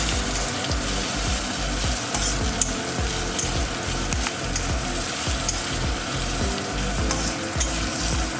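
Slit green chillies frying in hot oil in a pan with salt and sugar, sizzling steadily while a spoon stirs them, with faint clicks of the spoon against the pan now and then.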